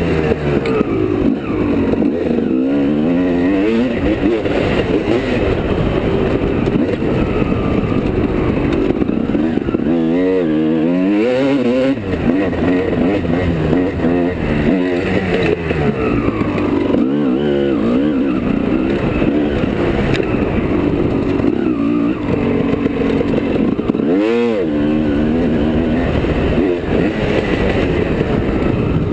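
Dirt bike engine revving up and falling back again and again while being ridden, heard from a helmet-mounted camera.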